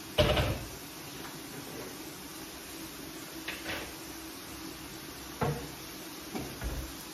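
A kitchen wall-cupboard door shuts with a sharp knock just after the start. A few lighter knocks and taps from items being handled on the counter follow, over a steady low hum.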